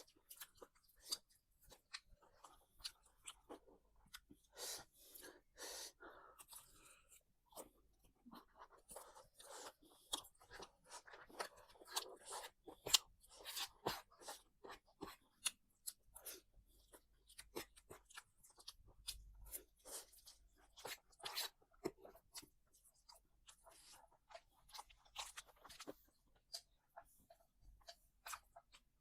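Close-miked chewing and crunching of food, a steady stream of irregular short crunches, smacks and clicks.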